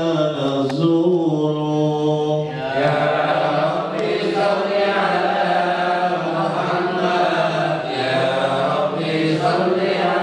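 A male voice chanting Islamic devotional verses in Arabic into a microphone, drawing out long, sliding notes; the sound turns fuller and denser about three seconds in.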